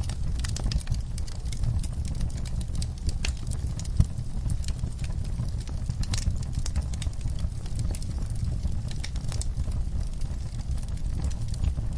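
Log fire crackling: irregular sharp pops and snaps over a steady low rumble of the flames, with one louder pop about four seconds in.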